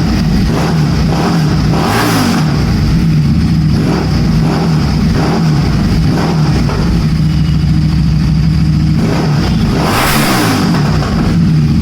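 Motorcycle engine idling through its exhaust, with the throttle blipped twice, about two seconds in and again near the end; each rev rises and drops back quickly to idle.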